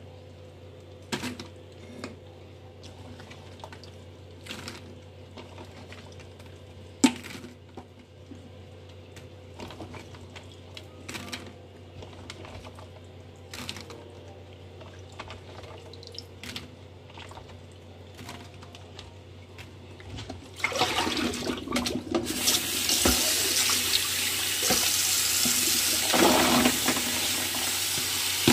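Wet raw peanuts in their shells being handled in a bowl of water and dropped into a plastic colander, with scattered light clicks and small splashes. About three-quarters of the way through, a kitchen tap is turned on and water runs steadily into the bowl, much louder than the handling.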